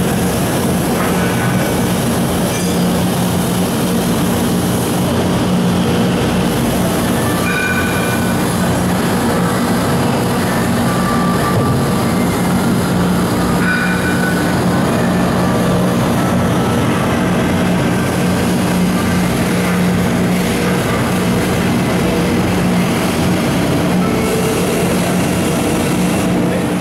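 A 1999 Mori Seiki SH-400 CNC horizontal machining center cutting metal under flood coolant. A steady low hum runs under the constant hiss and splash of the coolant spray.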